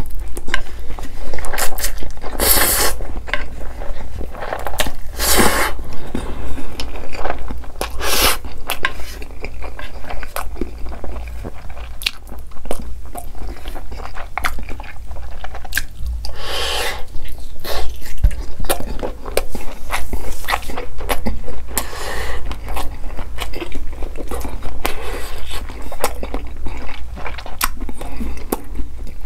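Close-miked eating: spicy instant noodles slurped in with chopsticks in several loud rushes, and a piece of grilled sausage bitten and chewed, with dense wet smacking and clicking of the mouth throughout.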